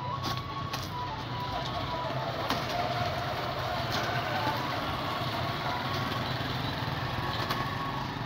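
Paper wrapping and a cardboard box rustling and crinkling as they are pulled open by hand, with a few sharp clicks, over a steady low hum.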